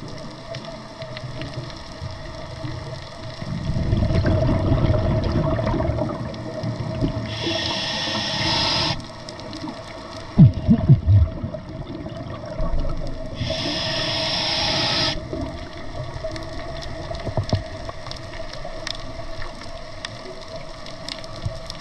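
Scuba diver breathing through a regulator underwater: two hissing inhalations about six seconds apart, with exhaled bubbles rumbling and gurgling low between them.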